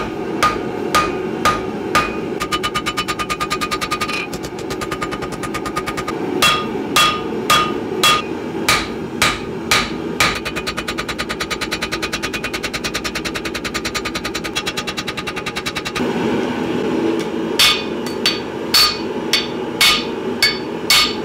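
Hand hammer forging a red-hot knife blade made from an old file on an anvil, hammering in the bevels and a distal taper. Heavy blows fall about two a second, with stretches of rapid lighter taps between, and the anvil rings after each blow.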